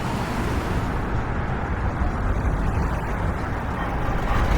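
City street traffic: a steady wash of car and truck engines and tyre noise with a low rumble.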